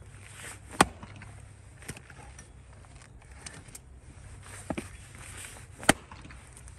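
Axe striking into a firewood round twice, about five seconds apart, each a single sharp loud chop, with a few lighter knocks of wood in between.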